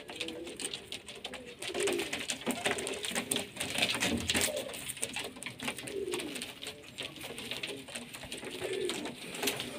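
Domestic fancy pigeons cooing several times, one low wavering coo after another, with scattered light clicks and scuffles from the birds moving about in a small room.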